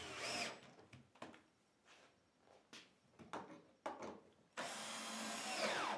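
Cordless drill/driver driving screws into wooden blocking: a short run right at the start, a few clicks and knocks through the middle, then a longer run from a little past four and a half seconds that winds down in pitch near the end.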